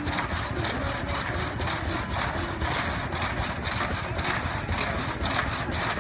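Engine-driven drag saw running and cutting through timber, its engine and reciprocating blade making a steady, even rhythm.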